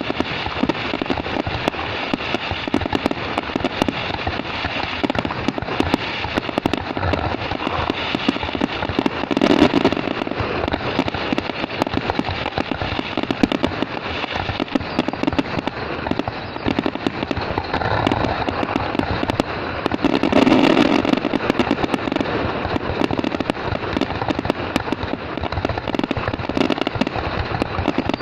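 Fireworks going off continuously: a dense crackle of many small bangs, with louder bursts about ten seconds in and again about twenty seconds in.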